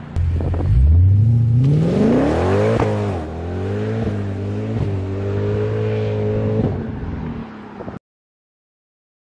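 Mercedes W204 C63 AMG's 6.2-litre V8, fitted with a full aftermarket exhaust with long-tube headers, on a full-throttle acceleration run. The engine note climbs steadily in pitch, drops at an upshift about three seconds in, then holds fairly steady in the next gear as it fades, and cuts off abruptly about eight seconds in.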